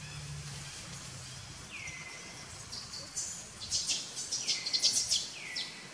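Wild birds calling: a high whistled note that drops and then levels off, heard three times. A flurry of sharp, very high chirps, the loudest part, comes in the second half.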